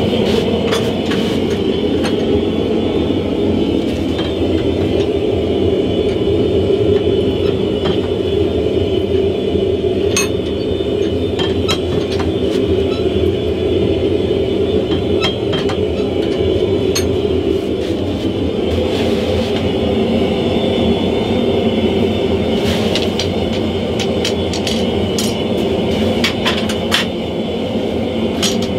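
Steady roar of a gas forge's burner, with scattered light clinks of metal as tongs and the hot steel blade are handled; the clinks come more often near the end.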